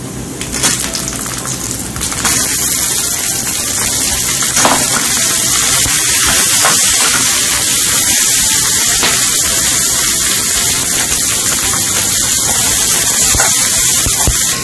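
Chopped napa cabbage sizzling in hot oil in a metal wok: a loud, steady hiss that starts about two seconds in, as the wet leaves hit the oil. A few light clicks of the metal skimmer against the wok.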